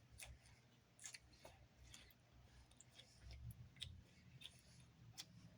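Faint crisp crunches of someone chewing salad, about eight sharp clicks spread unevenly over a few seconds.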